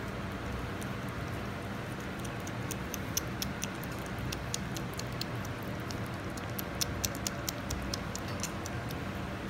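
Flat-faced Persian cat eating food off a tiled floor: an irregular run of quick small clicks and crunches of chewing, starting about two and a half seconds in and stopping near the end, over a steady low hum.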